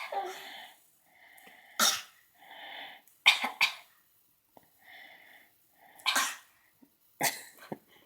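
A six-month-old baby fake coughing: a string of short, forced coughs, some in pairs, coming every second or two, with softer breathy sounds between them.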